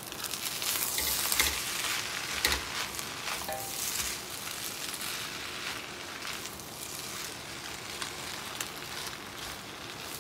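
Fried rice sizzling in a hot wok while a metal spatula stirs and tosses it, with a few sharp clinks of the spatula against the wok in the first few seconds.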